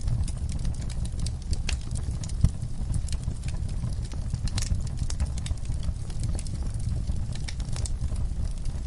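Wood campfire crackling, with many irregular sharp pops and snaps over a steady low rumble.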